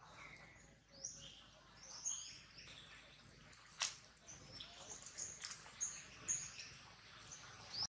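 Faint, scattered bird chirps, short and high-pitched, with one sharp click about four seconds in.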